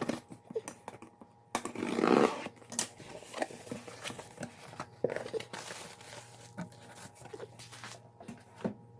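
Shipping package being torn open and unpacked by hand: one loud rip about two seconds in, then scattered crinkling and small clicks of the packaging being handled.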